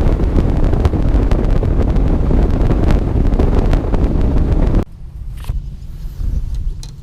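Bass boat running at speed, its motor rumble mixed with heavy wind buffeting the microphone. About five seconds in it cuts off abruptly to a much quieter steady low hum.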